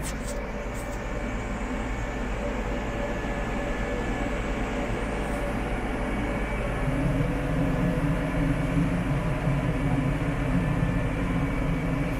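Massey Ferguson 4707 tractor's diesel engine running steadily while pulling a back blade through sandy road dirt. Its low note grows stronger about seven seconds in.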